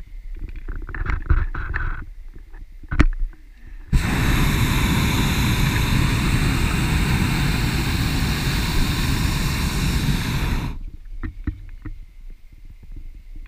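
Hot-air balloon's propane burner firing overhead in one long blast of about seven seconds, starting and cutting off abruptly. Before and after it, low gusty rumbling and a few knocks on the microphone.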